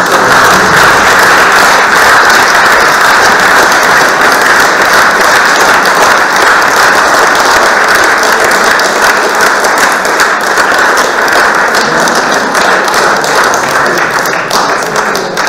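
Audience applauding: many people clapping together in a dense, steady patter that fades toward the end.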